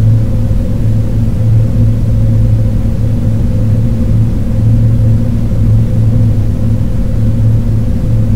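Loud, steady, low rumbling drone from an electronic art soundtrack, with a deep hum and fainter higher hums above it that do not change.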